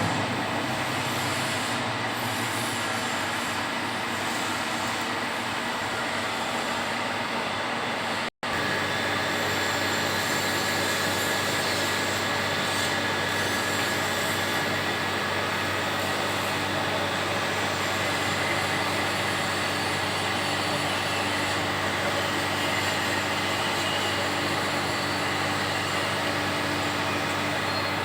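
CNC milling machine running a thread-milling cut: a steady machine hum with a high spindle whine. The sound drops out for a split second about eight seconds in.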